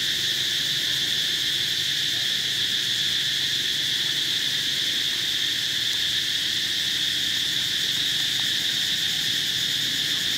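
Steady, unbroken high-pitched chorus of insects, an even buzzing drone that does not let up.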